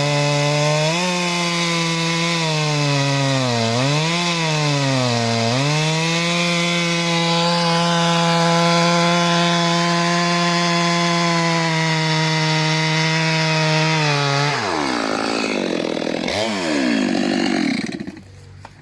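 STIHL MS 462 two-stroke chainsaw with a 90 cm bar, running at high revs through a log. Its pitch dips twice as the chain bogs under load, then holds steady. About fifteen seconds in the revs drop, jump briefly once more, and the sound falls away near the end.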